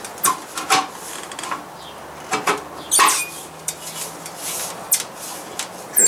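Kerosene heater's sheet-metal parts clinking and scraping as the burner and chimney assembly is worked down to seat properly: a handful of sharp clinks, the loudest about three seconds in.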